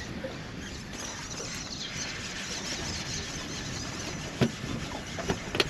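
Steady wind and water noise on open water, with a few sharp knocks in the last second and a half.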